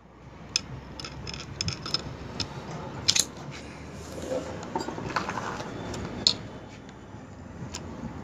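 Small metal clicks and clinks of a screwdriver and fingers working the return springs into a Preet tractor's rear disc brake plate. The irregular sharp ticks are loudest about three seconds in, over a faint low hum.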